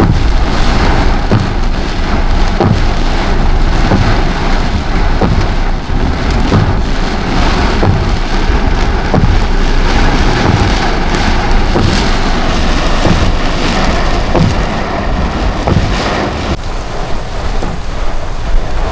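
Heavy rain pouring down in a thunderstorm, with many sharp drop hits on a nearby surface over a steady low rumble; the low rumble falls away near the end.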